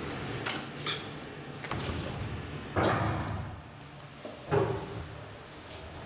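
ALGI bed elevator's sliding doors running, with a thump and a rushing slide about three seconds in and another thump about a second and a half later. A steady low hum runs under the first half.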